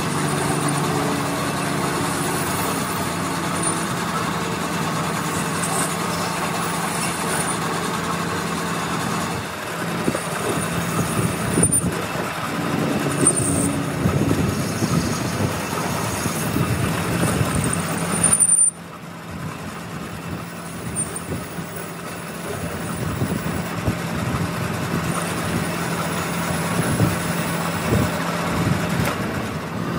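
Metal lathe running with a steady hum while a carbide cutting tool turns a steel workpiece, the tool cutting continuously. The sound shifts abruptly about nine and about nineteen seconds in.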